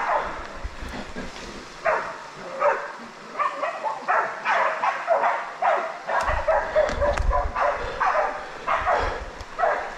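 Pig-hunting bay dogs barking in a steady string of short barks, baying a wild pig they have brought to bay. A low rumble comes in from about six seconds in.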